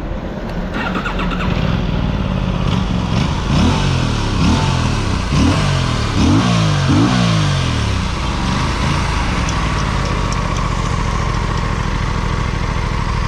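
Aprilia RS 457 parallel-twin engine running, with its pitch rising several times in quick succession in the first half, then holding steady.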